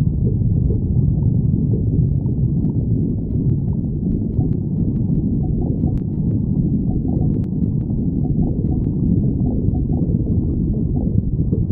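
A hungry stomach growling: continuous low rumbling and gurgling, with a few faint clicks in the middle.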